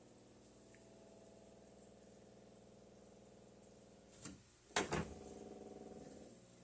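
A faint steady hum with several overtones and a slightly wavering pitch, the unexplained noise in the house. About four and five seconds in there are two short knocks, after which the hum goes on a little louder and then fades out just before the end.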